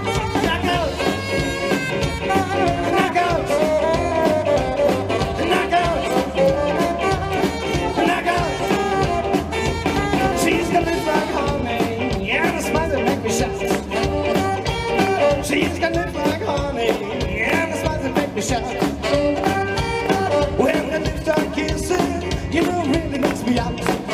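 Live rockabilly band playing an instrumental passage: electric guitars over upright double bass and drum kit, with no singing.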